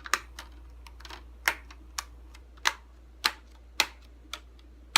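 Plastic laptop screen bezel being pressed back onto its clips, snapping in with about eight sharp clicks at irregular intervals as it is worked around the frame.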